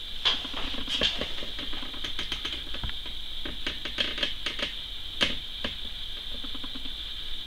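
Small paintbrush dabbing and tapping on watercolor paper while painting tree shapes: a run of irregular light taps and scratchy strokes, over a steady high hiss.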